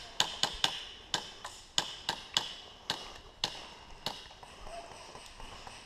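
Airsoft gunfire: a quick, irregular run of about ten sharp cracks in the first four seconds, then a few fainter ones.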